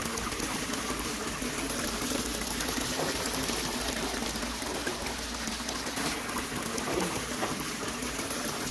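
Muddy water sloshing and trickling as hands dig and squeeze wet mud in a waterlogged pit, a steady wet noise with small scattered squelches.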